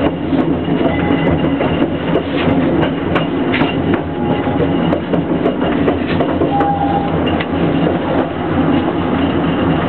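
Narrow-gauge train running on board: a steady low rumble of the train with irregular clacks and knocks as the wheels cross rail joints and switches.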